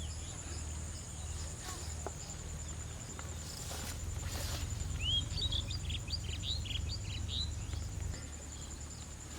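Outdoor ambience: a steady high insect drone throughout, and a bird giving a quick run of chirps about five seconds in.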